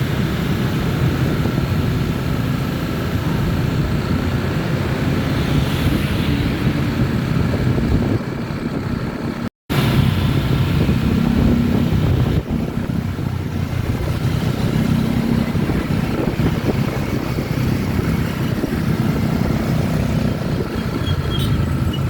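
Steady engine and road noise of a vehicle on the move, with wind buffeting the microphone; the sound cuts out for a split second a little under ten seconds in.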